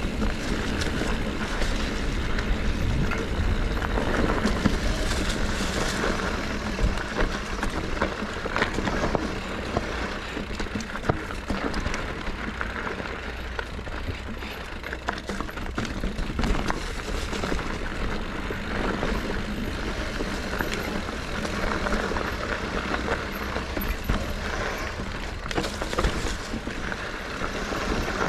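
Mountain bike ridden over rough ground: steady tyre noise with frequent knocks and rattles from the bike.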